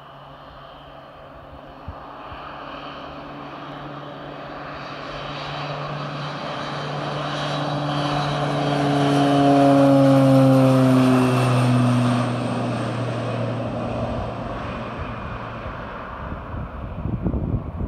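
Beechcraft Super King Air 200 twin turboprop on its takeoff roll, passing close by: the propeller and engine drone grows louder to a peak about ten seconds in, drops in pitch as the plane goes past, then fades as it climbs away. Wind buffets the microphone near the end.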